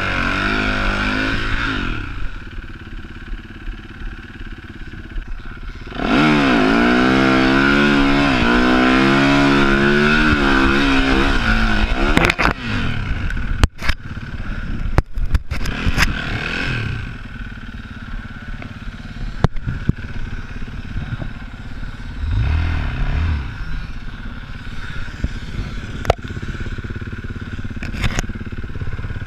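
Yamaha enduro motorcycle engine revving up and down under hard throttle, then a run of knocks and clatter about twelve seconds in as the bike crashes. After that the engine runs lower with scraping and scattered clicks while the bike is down in the dirt.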